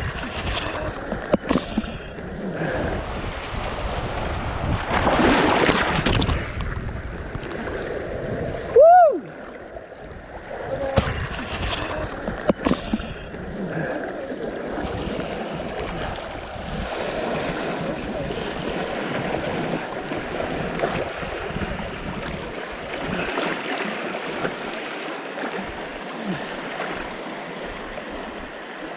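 River water rushing and splashing around a raft, with a louder rush about five seconds in and a few sharp knocks. A brief whistle-like tone that rises and falls about nine seconds in is the loudest sound.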